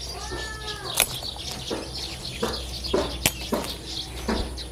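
Garden plants rustling and brushing as they are handled, with a few sharp clicks and snaps, over birds chirping faintly in the background.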